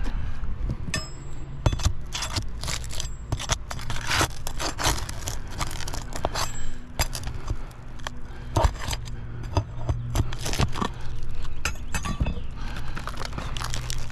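Metal tool scraping and clinking against brittle asphalt shingles and roofing nails as a shingle is lifted and worked loose, in irregular scrapes and clicks, with a steady low hum underneath.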